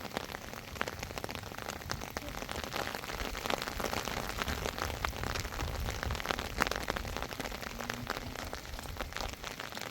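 Steady rain falling, with many small sharp drop ticks over an even hiss.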